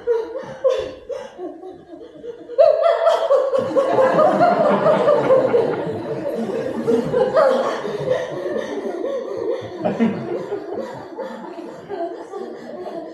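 Theatre audience laughing: scattered chuckles, then a sudden burst of laughter from the crowd about two and a half seconds in that carries on for several seconds and slowly dies down.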